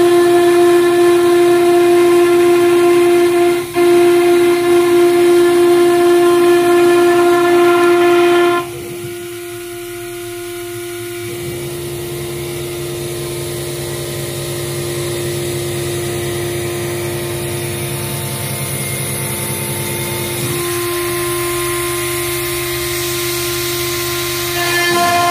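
Stone CNC router's spindle running with a steady high whine and overtones. About eight seconds in the sound drops sharply and changes, a lower hum joins a few seconds later, and it shifts again and grows louder near the end.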